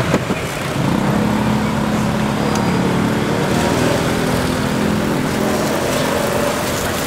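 Road traffic close by: motorbike engines running and passing, their hum swelling and fading twice over a steady street noise.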